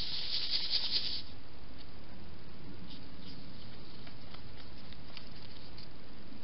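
A hedgehog moving about right up against the trail camera: a burst of rustling in the first second, then faint scattered ticks and scuffs.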